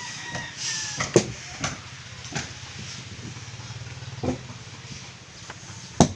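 A small engine running steadily with a low hum, with a few sharp knocks of hammering on wood scattered through it.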